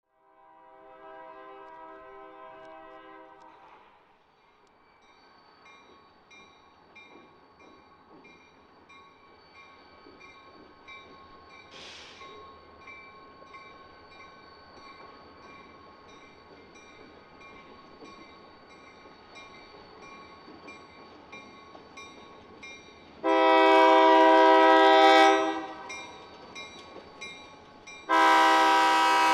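Diesel locomotive horn sounding for a grade crossing. A soft blast comes at the start, then a crossing signal bell dings steadily over the low rumble of the train. Near the end come two loud horn blasts, the second still sounding as it ends.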